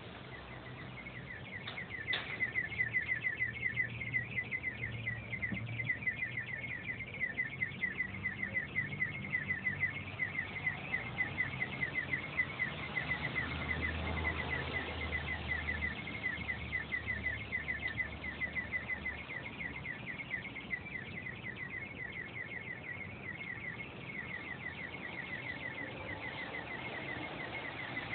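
A Nissan Tiida making a strange rhythmic high-pitched squeak, a fast run of short chirps several times a second, over a low engine hum. It fades somewhat over the last few seconds.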